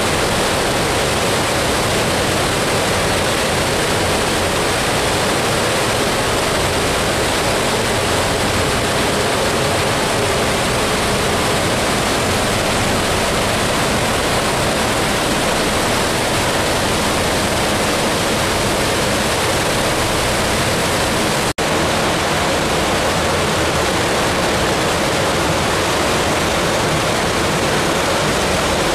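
Steady rush of rainwater pouring into a berkeh (water reservoir) while rain falls. The sound cuts out for an instant about two-thirds of the way through.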